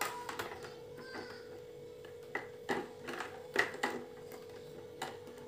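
Plastic visor being fitted to a KYT Galaxy Slide motorcycle helmet: a scattered series of light clicks and taps as the visor is pressed into its side mount, over a steady hum.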